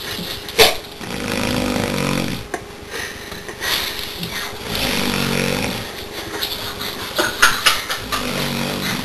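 A man snoring: three drawn-out snores about three seconds apart, with a few short sharp clicks between them.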